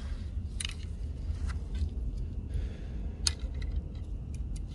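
Scattered light clicks and small rattles, the sharpest about three seconds in and several more in quick succession near the end, over a steady low rumble.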